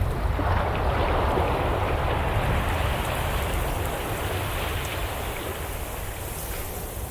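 Steady rushing water noise with a deep low rumble underneath that swells about half a second in and slowly eases off.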